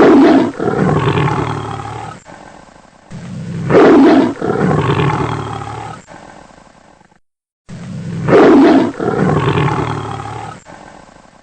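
A big cat's roar as a sound effect, the same roar played three times, each loud at the start and trailing off in a long growl.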